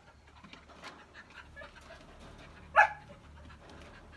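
A dog gives one short, sharp bark or yelp about three seconds in, over faint scattered ticking and rustling.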